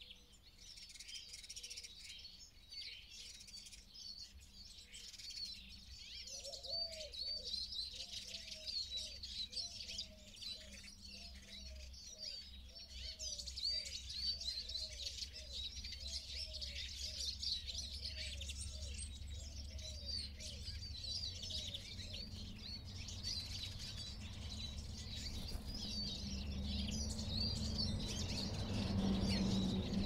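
Small songbirds chirping and twittering continuously in quick, high notes. From about six seconds in to about twenty-two seconds a lower call repeats roughly once a second underneath, and low background noise grows louder near the end.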